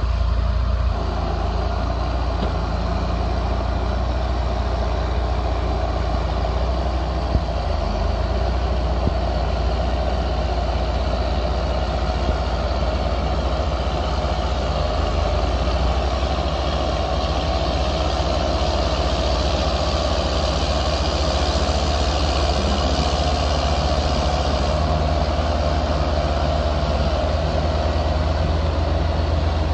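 John Deere 7810 tractor's 8.1-litre six-cylinder diesel engine running steadily under load, pulling a five-furrow plough through hard soil.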